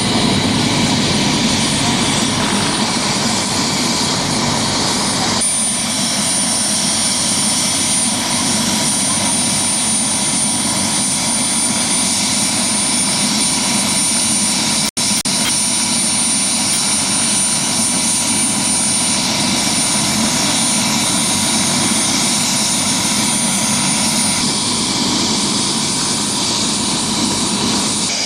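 Helicopter running close by: loud, steady engine and rotor noise with a thin high whine. It cuts out for an instant about halfway through.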